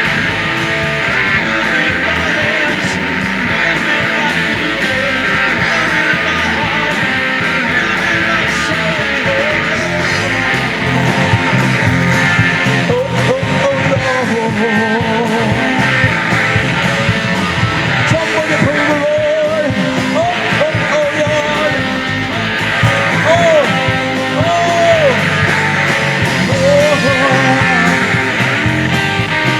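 A band playing a rock-style instrumental passage with guitar. From about halfway through, a lead line with bent, wavering notes comes over the top.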